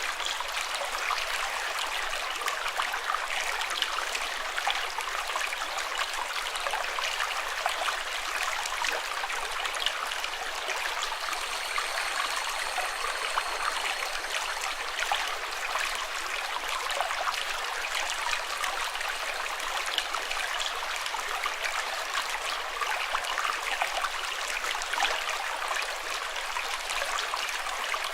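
Running water flowing steadily, like a stream, with a dense patter of small splashes and trickles that keeps an even level throughout.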